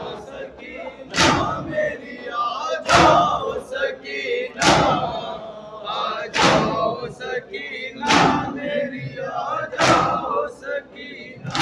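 A crowd of mourners doing matam, beating their chests with open hands in unison: six heavy slaps at an even pace of about one every second and three quarters, with voices chanting between the strikes.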